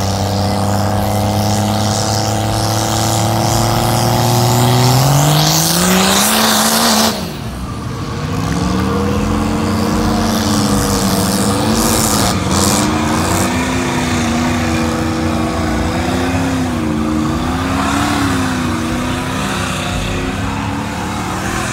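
Truck engine working hard under load as a lifted truck is dragged out of deep mud. It runs steady, then revs up about five seconds in with a loud rush that cuts off suddenly near seven seconds. After that the revs rise and fall unevenly.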